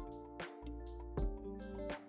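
Background music with a steady beat and a strong bass line.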